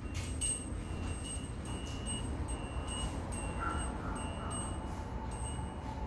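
A high electronic tone beeping on and off, short beeps about once or twice a second, over a steady low hum.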